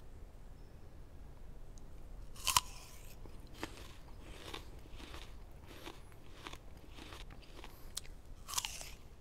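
Biting into crisp apple slices: a loud crunch about two and a half seconds in, then steady chewing, about one crunch every half second or so, and a second bite near the end.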